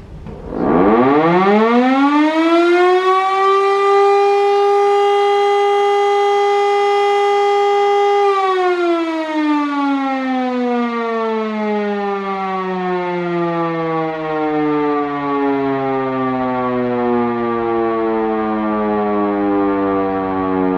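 L141 factory siren sounding a single test cycle. About half a second in its loud, many-overtoned howl rises steeply in pitch, then holds one steady note for about five seconds, then sinks slowly and continuously in pitch as it winds down.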